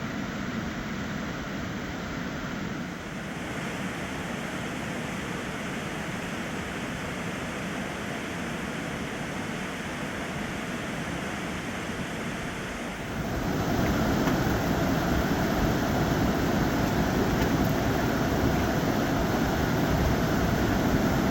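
Fast-flowing river rushing steadily. About thirteen seconds in it turns suddenly louder and fuller.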